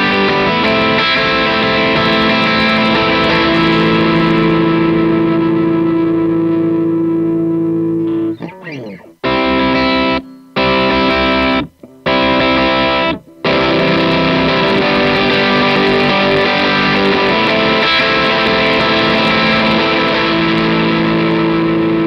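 Electric guitar played through Cubase's VST Amp Rack amp simulator, with compressor, delay and flanger effects in the chain, sounding long distorted chords that ring out. About eight seconds in, the sound cuts out and back in four times in quick succession, then the held chords carry on, with a fuzz effect now added to the chain.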